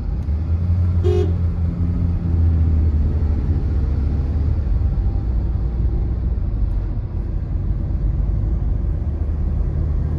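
Low, steady rumble of a car's engine and tyres heard from inside the cabin in traffic, with one short car-horn toot about a second in.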